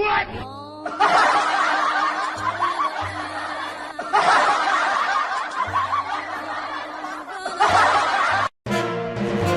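Laughter, chuckling and snickering, in three long waves over background music, cutting off abruptly near the end.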